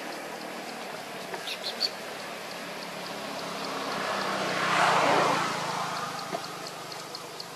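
A motor vehicle passing, swelling to its loudest about five seconds in and then fading, over a steady background with a faint regular high ticking.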